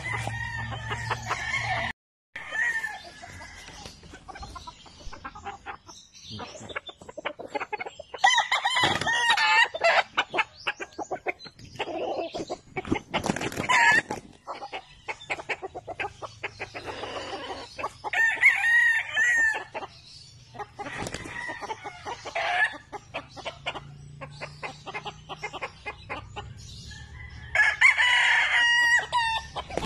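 Roosters crowing, three long crows spaced about ten seconds apart, with clucking and rustling between them. Wings flap and scuffle as two gamecocks spar.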